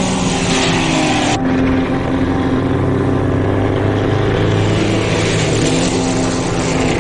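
Early racing car engines running at speed as cars pass, a steady drone with a shift in tone about a second and a half in.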